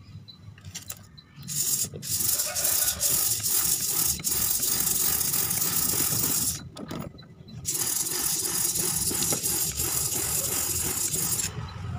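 Coarse sandpaper rasping against the inner friction surface of an automatic scooter's clutch bell as the rear wheel is turned, in two long stretches with a pause of about a second in the middle. The sanding takes out scoring on the bell that is taken for the cause of the judder when pulling away.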